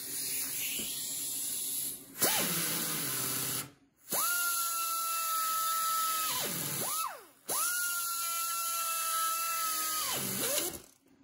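A handheld pneumatic tool with a bit, running in short bursts to enlarge a bolt hole in a steel bicycle-engine mounting bracket. Each burst is a steady high whine over air hiss that rises as it spins up and falls as it winds down. There are about four bursts, and the two longest come in the second half.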